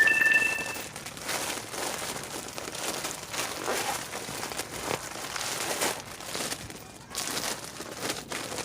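Toy packaging crinkling and rustling in irregular bursts as it is handled and opened. A short electronic beep sounds right at the start.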